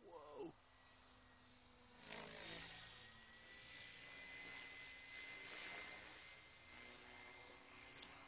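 Align T-Rex 600 RC helicopter flying high overhead: a steady high-pitched whine that swells about two seconds in and holds.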